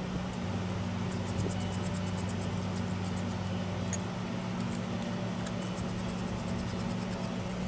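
Sym DD50 scooter's small two-stroke engine idling steadily, a constant hum with faint rapid ticking.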